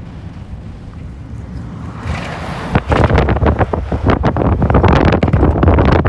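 Wind buffeting the microphone in a moving vehicle, over a low road rumble. The buffeting turns much louder and rougher about three seconds in.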